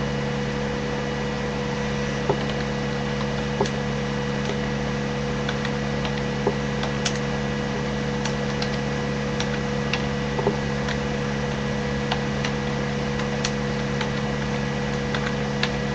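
Steady hum with several steady tones, with about a dozen faint, soft clicks scattered through it.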